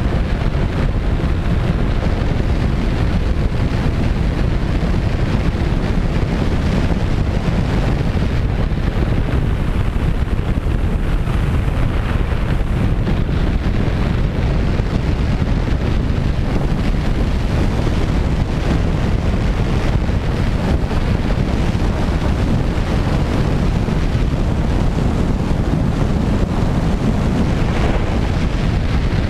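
Steady rush of airflow buffeting the microphone of a camera mounted on a radio-controlled Twin Otter model plane in flight.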